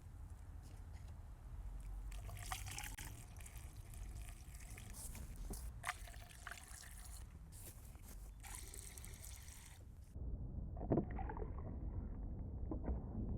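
Windshield washer fluid trickling and pouring from a jug through a funnel into a car's washer reservoir, with a few light knocks. The sound becomes louder about ten seconds in.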